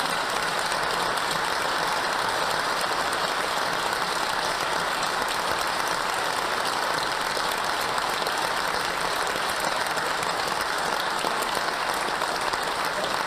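Studio audience applauding, a long, steady round of clapping.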